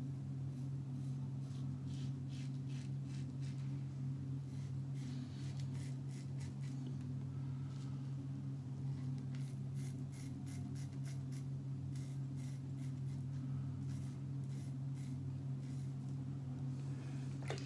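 A double-edge safety razor (an Edwin Jagger fitted with a King C. Gillette blade) scrapes through lathered beard stubble. The short strokes come irregularly, often in quick runs, over a steady low hum.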